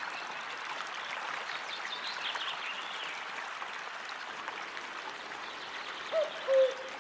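Steady flowing water of a stream, with a few faint bird chirps, and a short two-note bird call near the end.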